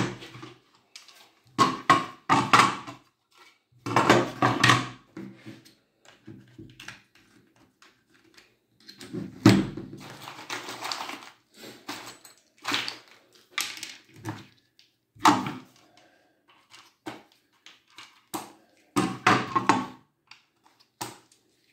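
Irregular wooden knocks and clatter of pine drawer boards being picked up and set down on a wooden tabletop, with some handling of wooden dowels.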